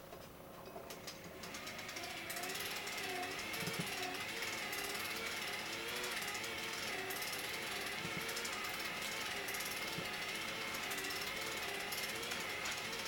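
JR 211 series destination roll sign winding its film: a motor whine that wavers in pitch over a fast, steady rattle of the mechanism. It builds up over the first two seconds.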